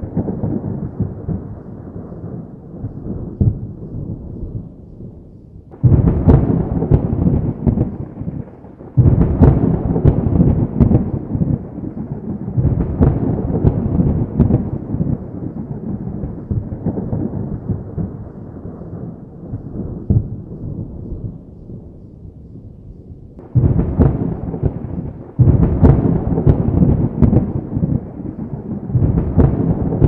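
Rolling thunder from a line of thunderstorms: a continuous low rumble with crackling, with several fresh peals that break in suddenly and die back between them.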